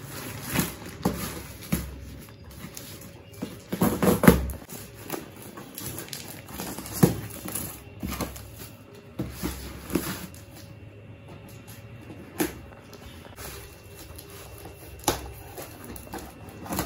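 Irregular rustling, knocks and snips as cardboard boxes tied with plastic strapping are handled and the straps are cut with scissors; the loudest knocks come about four and seven seconds in.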